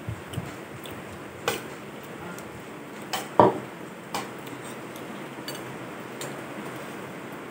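Metal spoons clinking and scraping against a plastic bowl as a toddler feeds herself rice: scattered short clicks, the loudest about three and a half seconds in.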